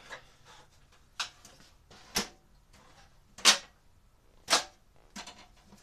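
A ladder being handled and set up: a run of sharp knocks and clacks, about one a second, the loudest two about halfway through.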